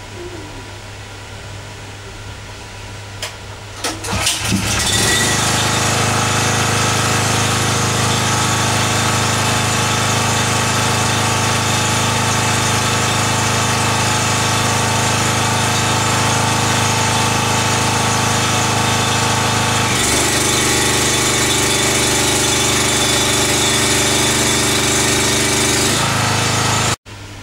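Pull-start of a Honda GX240 single-cylinder petrol engine on an open-frame 4 kW generator: a couple of cord pulls, then it catches about four seconds in and runs loud and steady. About twenty seconds in its note changes, as an electrical load is put on the generator.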